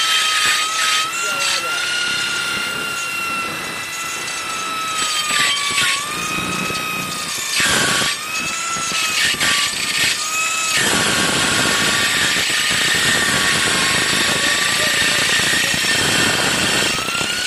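Electric hand drill clamped in a track-drilling jig, its motor running with a steady whine as the bit bores into steel. The pitch sags and wavers under load. From about eleven seconds in, a harsher, denser cutting noise builds up.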